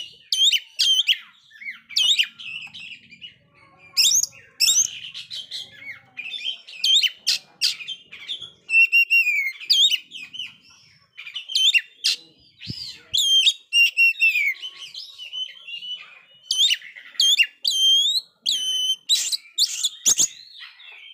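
Oriental magpie-robin (kacer) singing continuously: fast runs of varied whistled notes and rising and falling sweeps, in bursts with short pauses between them.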